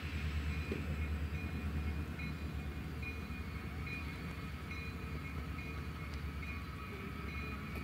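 Two CSX EMD diesel locomotives, an SD40-2 leading an SD70MAC, with their engines running as the train approaches slowly: a steady low rumble. Above it a high tone keeps coming and going.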